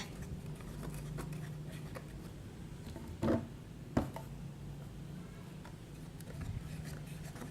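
Faint handling noises of activator being added and slime mixed in a container, with a short louder sound a little after three seconds and a sharp click at about four seconds, over a low steady hum.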